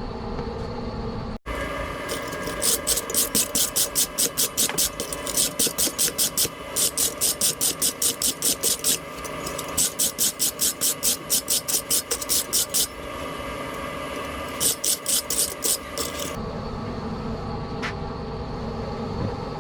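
Wire brush scrubbing hot forged steel in quick back-and-forth strokes, about four or five a second, in several runs broken by short pauses. A steady hum runs underneath, and the brushing stops a few seconds before the end.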